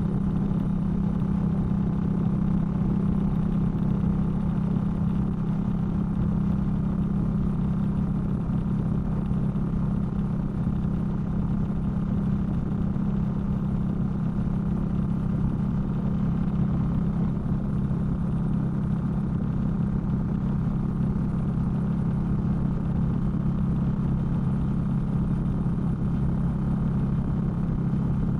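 Indian Scout motorcycle's V-twin engine running steadily while riding at an even speed, with no revving, heard through an audio recorder wrapped in a sock in the saddlebag, which mutes the wind noise.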